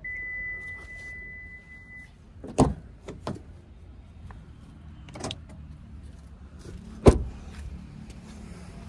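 A car door being opened and shut on a Maruti Suzuki Grand Vitara SUV. There is a steady high beep for about two seconds as the handle is pulled, a knock as the door opens a couple of seconds in, a softer knock later, and a loud slam about seven seconds in as the door is shut.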